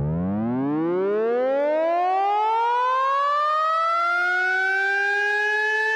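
GarageBand's Screamlead synth lead playing one long note that slides slowly upward from a very low pitch with maximum glide time, used as a pitched EDM riser. The rise is fast at first and flattens out as it nears the high note. A second, lower tone joins about two-thirds of the way through.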